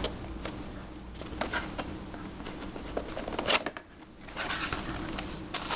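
Paperboard gift box being lifted out of a cardboard shipping carton and handled: light taps and scrapes of cardboard, a sharp knock about three and a half seconds in, then a stretch of rustling.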